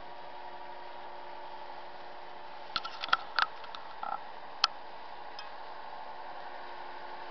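A steady mechanical hum, like an engine running at a distance, with a few steady tones in it. A quick cluster of sharp clicks comes about three seconds in, and a single louder click follows about a second and a half later.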